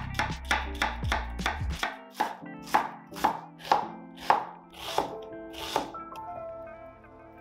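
A chef's knife chopping an onion on a wooden cutting board: quick knocks of the blade on the board, about four a second at first, slowing to about two a second, and stopping about six seconds in.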